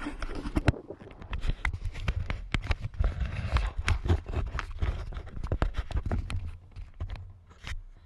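Handling noise from a hand working right at the camera: a rapid, irregular run of clicks, knocks and rubbing that stops shortly before the end. Under it is a low wind rumble on the microphone.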